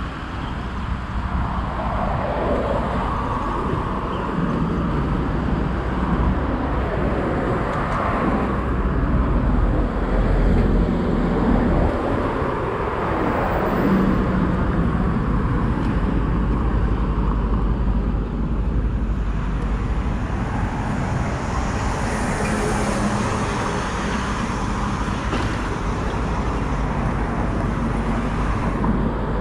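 City road traffic: cars and other vehicles passing one after another over a steady low rumble, with a hiss from a passing vehicle for a few seconds about two-thirds of the way in.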